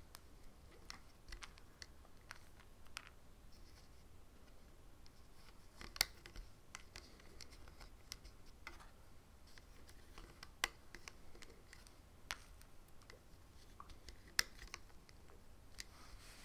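Faint, irregular clicks and light scratching of rubber loom bands being stretched over and pushed down onto the plastic pins of a Rainbow Loom, with a few sharper clicks now and then.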